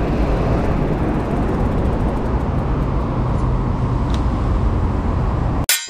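Steady road-traffic rumble heard from a bicycle riding along a roadside sidewalk. A sharp click and a moment's dropout come near the end.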